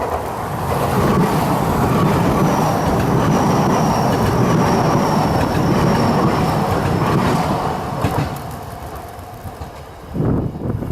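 Keio Inokashira Line electric train passing over the level crossing: a loud rumble and clatter of wheels on rail that builds in the first second and holds for about seven seconds. A thin high whine runs through the middle of the pass. The noise eases after about eight seconds, then a few louder clattering bursts come near the end.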